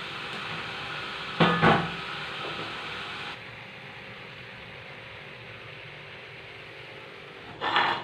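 A spiced chicken and vegetable filling sizzling in a frying pan, with a pair of utensil knocks on the pan about a second and a half in. The sizzle drops quieter about three seconds in, and another knock comes near the end.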